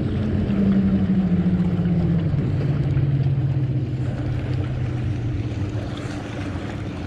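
Motorboat engine drone gliding down in pitch over a few seconds and fading, as a boat passes, over a steady rush of wind and water.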